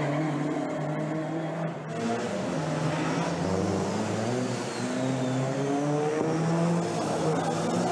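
Several pre-1965 GT and sports racing cars running hard, their engine notes overlapping and rising and falling as they accelerate, lift off and change gear.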